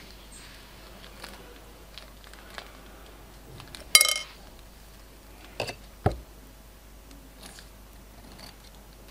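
A plastic piping bag full of glossy glitter slime and plastic charms being squeezed by hand, with faint crinkles and clicks. A short squeaky squelch about four seconds in is the loudest sound, followed by two sharp knocks against the plate a couple of seconds later.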